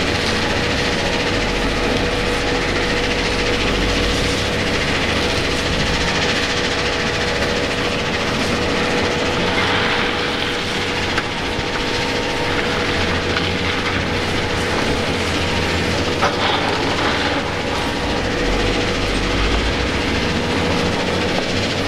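Rock crushers running: a loud, steady mechanical din with a constant hum and low rumble. A single sharp knock sounds about sixteen seconds in.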